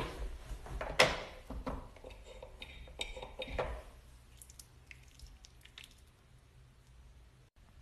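Plastic tube of lotion handled and squeezed: a sharp click about a second in, then a few softer clicks and squishes over the next few seconds, dying down to faint handling sounds.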